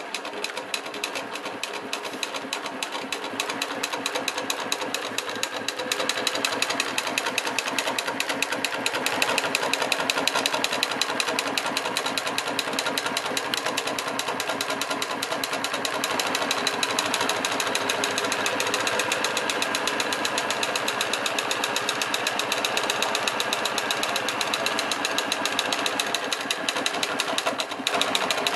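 Golden Wheel CSU 8671DN industrial sewing machine starting suddenly and stitching at speed, its needle mechanism clattering in a rapid even rhythm as it sews binding tape onto a fabric edge. It runs a little louder from about six seconds in, with a brief dip near the end.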